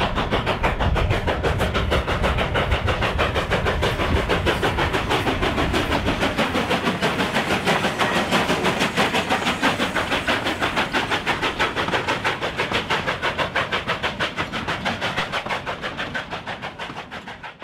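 Narrow-gauge steam locomotive No. 489 running past close by with its train, a loud, fast and even beat of about four to five pulses a second. The sound fades out near the end.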